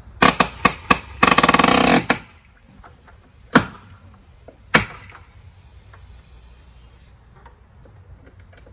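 Compact pneumatic nail gun driving nails into wood: four quick shots in the first second, a dense rattling burst lasting about a second, then two single shots about a second apart.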